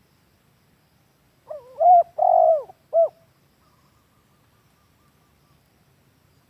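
Spotted dove (tekukur) cooing one phrase of three notes about a second and a half long: a short coo, a longer held coo, then a brief clipped final note. It is a lure call of the kind used to draw or train doves.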